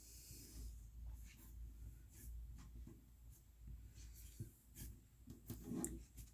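Soft cloud slime being squished and stretched by hand, giving faint, irregular crackles and small sticky pops.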